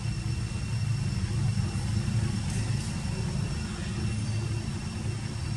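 A steady low rumble with faint, even high-pitched tones above it.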